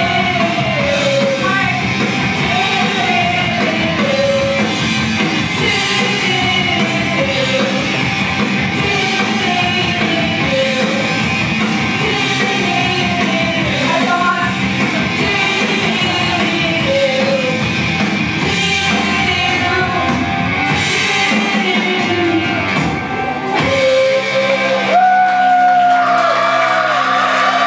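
A woman singing loudly into a microphone over a rock accompaniment, her voice at times close to shouting. Near the end the music settles into long held notes.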